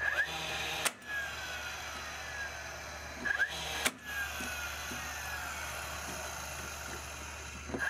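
Cordless nailer driving two nails about three seconds apart, each shot a sharp crack. Its motor whirs steadily around the shots, with a falling whine after each.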